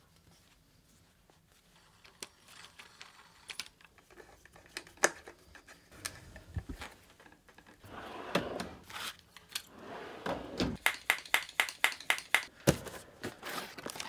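Small clicks and knocks of metal hand tools working at a mountain bike's rear shock mount while the air shock is bolted into the frame. Near the end they become a fast run of clicks, several a second.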